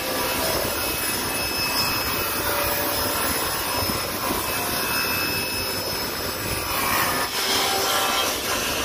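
Table saw running steadily while its spinning blade rips a wooden board lengthwise along the fence, with a slight change in the sound near the end.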